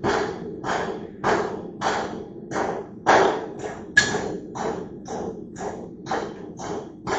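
Hand hammer striking steel on an anvil in a steady rhythm, about two blows a second, with one brighter ringing strike about four seconds in. A low steady hum runs underneath.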